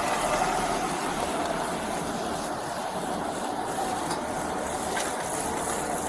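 Steady background vehicle noise, an even rushing hum with no breaks.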